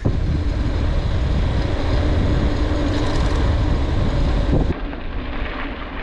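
A motor vehicle running close by on the road: a loud, steady rumble of engine and road noise that drops away almost five seconds in.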